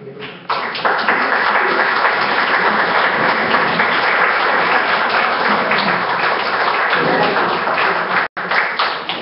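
Audience applauding steadily, a roomful of hands clapping together. The applause starts about half a second in and is briefly cut off near the end.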